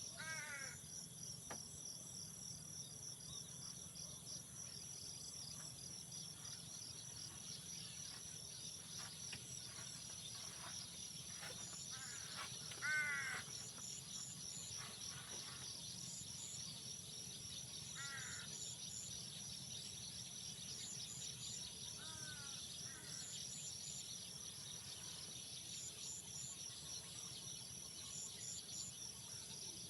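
Insects chirring in a steady high, pulsing chorus, with an animal calling four times over it, the loudest call about 13 seconds in.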